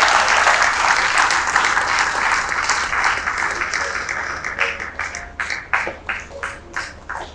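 Audience applauding, a dense round of clapping that fades and thins out over the last few seconds to a few scattered individual claps.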